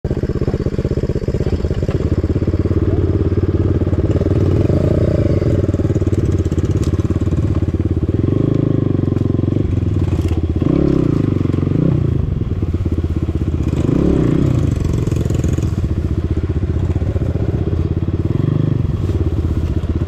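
Enduro dirt bike engine running at low speed over rough forest ground, revving up briefly four or five times with the throttle.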